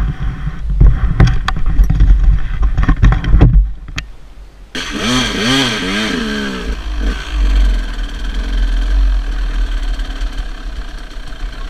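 KTM dirt bike engine running as it is ridden along a gravel track, with heavy rumble and knocks in the first few seconds. About five seconds in, the engine note rises and falls as the throttle is worked, then settles to a steadier run.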